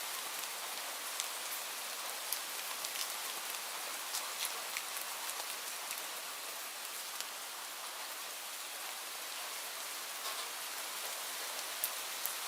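Light rain falling steadily: a soft even hiss with scattered sharp ticks of single drops hitting a surface.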